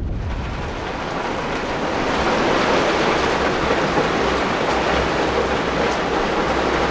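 Heavy squall rain pelting a sailboat's deck and cabin top, heard from inside the cabin: a dense steady hiss that grows louder about two seconds in.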